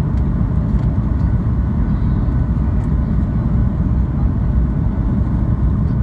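Boeing 737 engines and airflow heard inside the cabin as a steady low rumble, on the approach to landing.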